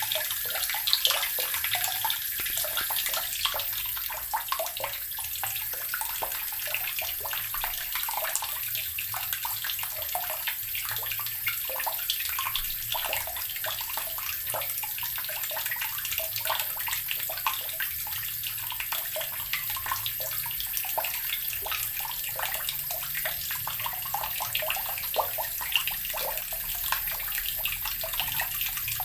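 Water running steadily from a tap and splashing into water below, with a constant flickering patter.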